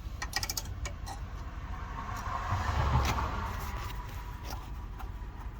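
A road vehicle passing by, its noise and low rumble building to a peak about three seconds in and then fading. A few sharp clicks just after the start.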